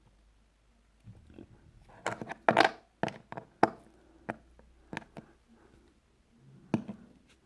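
Hands handling LEGO minifigure pieces and their plastic packaging: a string of sharp plastic clicks and short rustles, loudest about two to three seconds in, with another sharp click near the end.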